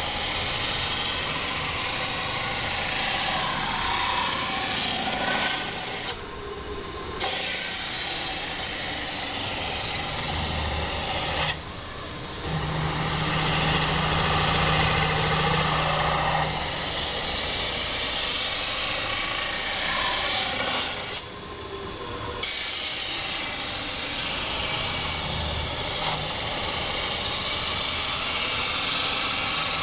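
SPG1300 CNC metal-spinning machine forming a sheet-metal cone: the forming roller presses against the spinning blank with a steady loud hissing rasp. The sound drops away three times, for about a second each, between passes.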